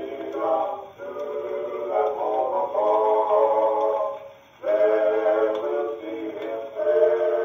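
Male gospel vocal quartet singing held chords in close harmony, played from a record on a hand-cranked acoustic phonograph, with a thin, narrow-range sound. The singing breaks briefly about a second in and pauses again just past four seconds.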